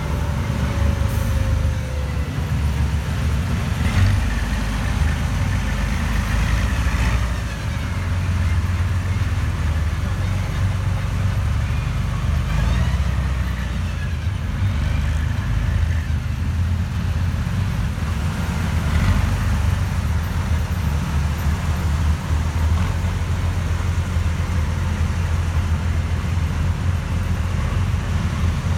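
Heavy military vehicles' diesel engines rumbling steadily as they drive past close by in a column: an eight-wheeled armoured personnel carrier, then a large missile-launcher truck. A faint falling whine is heard in the first couple of seconds.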